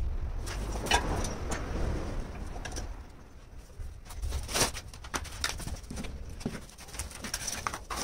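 Scattered knocks and clicks as pieces of green stone are set on a small wooden table and fastened with metal screw bar clamps, with no power tool running.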